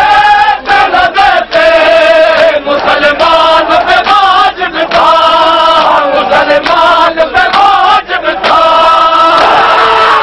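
Men's voices chanting a nauha, a Shia mourning lament, loudly in long held notes, phrase after phrase, over the noise of a packed crowd.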